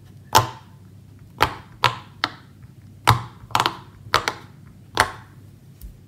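Silicone bubbles of a square pop-it fidget toy being pressed in one by one with the fingers: about ten sharp pops, unevenly spaced.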